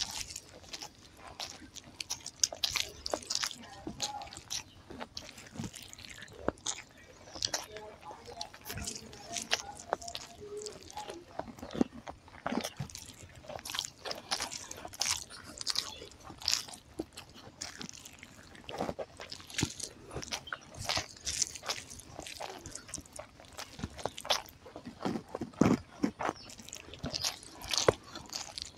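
Close-miked eating sounds: chewing and wet mouth smacks, with the squish of rice and curry gravy being mixed and kneaded by hand, making a steady run of irregular short clicks and smacks.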